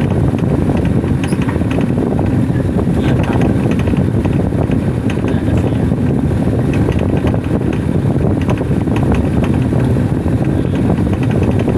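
Hitachi top-load washing machine spinning, heard from right under its drive motor and belt pulley: a loud, steady whirring rumble with faint irregular ticking, during a test spin after work on the spring behind a very loud noise at the end of the spin.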